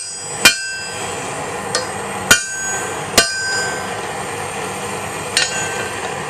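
Hand hammer striking hot rebar on an anvil, drawing the piece down to lengthen a blacksmith-tong handle: about five irregular blows, each leaving a short metallic ring, the last a quick double, over a steady rushing noise.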